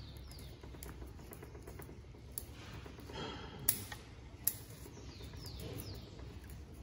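Bonsai scissors snipping twigs and leaves from an elm bonsai: a few sharp, separate clicks about a second apart, with a brief soft rustle of foliage between them.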